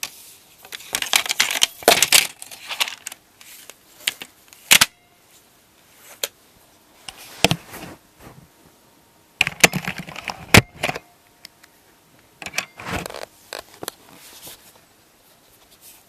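IBM PC Convertible 5140 keyboard being handled, its plastic and metal parts clattering, clicking and scraping in irregular bursts. The loudest bursts come in the first couple of seconds and again about ten seconds in.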